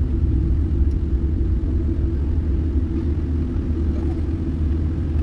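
Steady low rumble and hum of a Boeing 787 cabin while the airliner taxis toward the runway: engines at taxi power and cabin air running, with no change in pitch.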